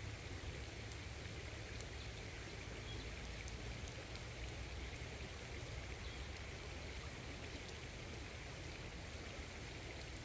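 Open wood fire crackling under chicken wings grilling on a rack of sticks: a steady hiss with scattered small sharp pops.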